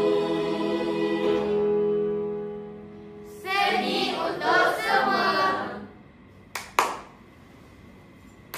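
A mixed school choir holds its final chord, which fades out about two seconds in. About a second later comes a short loud burst of many voices as the choir ends, followed by two sharp clicks.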